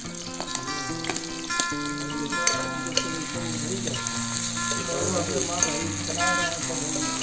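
Chopped onions sizzling in oil in a metal kadhai, stirred so that the ladle scrapes and clinks against the pan a few times. Instrumental background music with a stepping melody plays over it.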